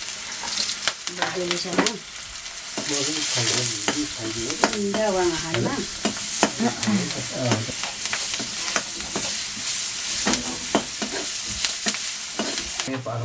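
Pork intestine frying in a hot pan with a steady sizzle, stirred over and over, with short scraping clicks of the utensil against the pan.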